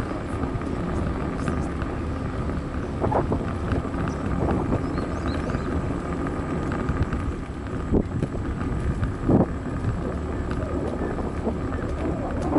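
Wind buffeting the microphone and a steady low rumble of riding over a concrete path, with a few brief knocks.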